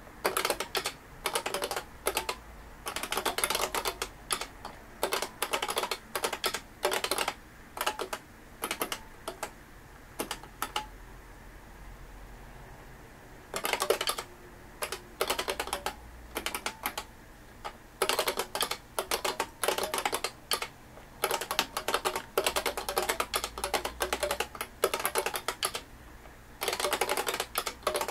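Typing on an IBM 5251 beam spring keyboard: runs of fast key clacks with short gaps between them, and one pause of about two seconds a little before the middle.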